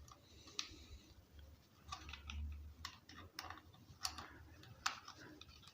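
Faint, scattered clicks and taps of small plastic chainsaw parts being handled and pushed into place while the choke lever is fitted. There are about six separate clicks over the few seconds.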